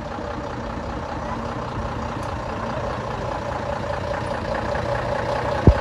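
Heavy vehicle's engine idling steadily, with one sharp knock near the end.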